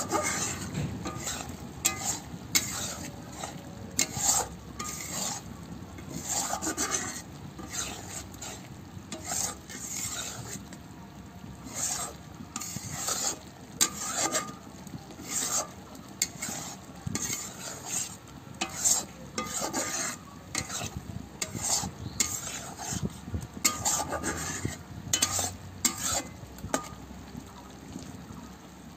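A spatula stirring mutton liver curry in a kadai, scraping and knocking against the pan in repeated strokes about once a second. Underneath, the thick gravy bubbles and sizzles as it cooks down.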